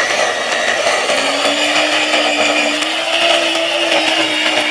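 Electric lawn edger running, its spinning blade cutting a shallow slit through the lawn turf. The motor runs steadily, its pitch rising a little after about a second and sagging slightly near the end as the load on the blade changes.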